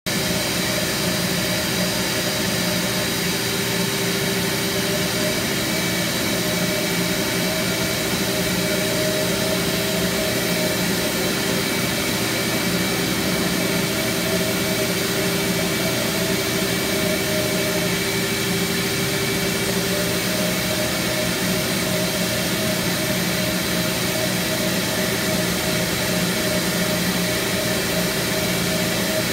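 Mytee portable carpet extractor running with its vacuum motors pulling suction through a rotary extraction head worked over wet carpet. It is a steady, loud rush of air with several hum tones.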